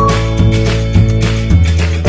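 Background music: sustained notes over a strong bass with a regular beat.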